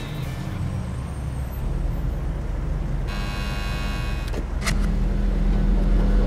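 A steady low rumble that grows louder, with a bright buzzing tone for about a second and a half midway.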